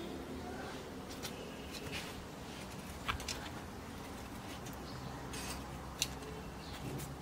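Metal tongs knocking and scraping inside a clay tandoor, giving scattered clicks and scrapes. The two sharpest clicks come about three seconds apart.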